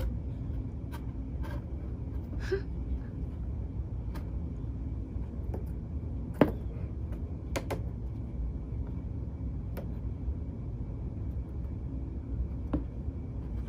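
Scattered light taps and scrapes of cats pawing at a ribbon wand toy on top of a cardboard cat house, over a steady low rumble of background noise; the sharpest tap comes about six and a half seconds in.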